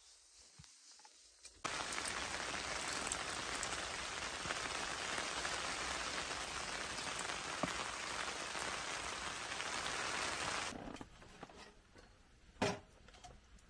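Steady heavy rain falling, a dense even hiss that begins suddenly about two seconds in and cuts off after about nine seconds. A single sharp knock follows near the end.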